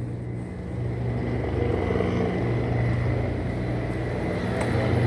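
Steady low hum of a motor vehicle engine running, growing slightly louder.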